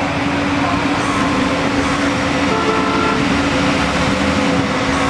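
JCB tracked excavator's diesel engine running with a steady drone as the boom swings and the bucket lifts and dumps earth, with a brief higher tone about halfway through.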